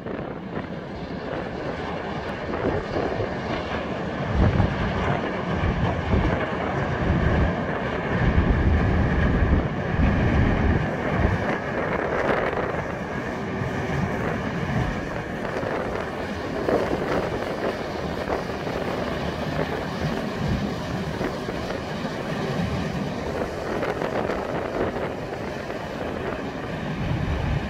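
Car ferry's engines and propellers running hard as it manoeuvres to berth stern-first, with a steady hum and churning propeller wash. Wind buffets the microphone in gusts, heaviest in the first half.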